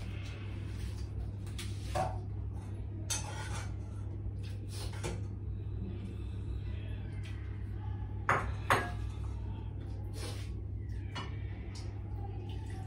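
Kitchenware clinking as a bowl, pot and utensils are handled at the stove, with two sharp clinks a little past eight seconds in, over a steady low hum.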